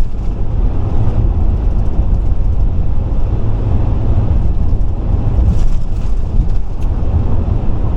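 Steady road and tyre rumble with engine drone inside the cabin of a Chevrolet vehicle cruising at highway speed, heaviest in the low end and unchanging throughout.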